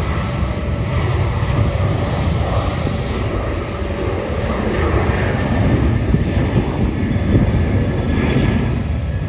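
Jet airliner engines running, a steady roar heard across the airfield.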